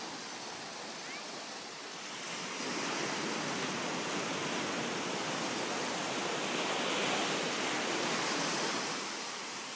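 Small waves breaking and washing up a sandy beach, a steady rush that swells louder a couple of seconds in and eases near the end.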